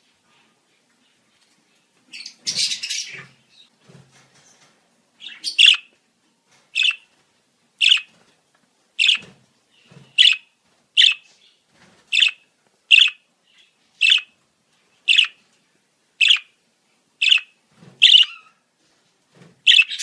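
Budgerigar calling: after a brief pause, a short burst of chatter, then a run of short sharp chirps repeated about once a second.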